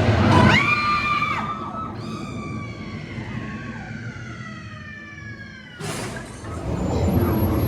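Haunted Mansion stretching-room show effect: a thunderclap, then a woman's long scream that holds briefly and then slides down in pitch over several seconds, ending in a crash about six seconds in. Guests murmur afterwards.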